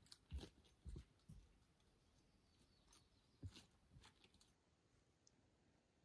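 Faint footsteps on a rocky forest trail: a few soft steps in the first second and a half and two more around three and a half to four seconds in, then near silence.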